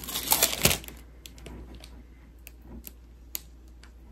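A small cardboard box being handled: about a second of scraping and rustling, then scattered sharp clicks and taps, like fingernails on the box.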